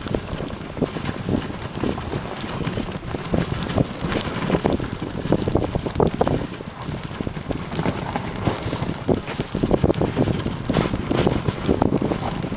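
Wind buffeting the microphone of a camera riding in a moving dog sled, with irregular knocks and scrapes as the sled bumps along the snow trail.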